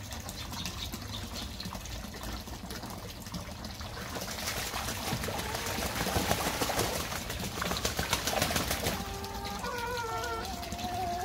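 Water trickling from a pipe into a shallow cement tank, with domestic geese splashing and flapping their wings as they bathe, loudest from about four seconds in. Near the end a goose calls several times.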